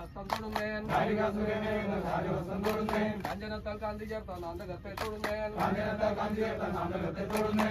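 Men's voices chanting a sung devotional chant, holding long notes that rise and fall.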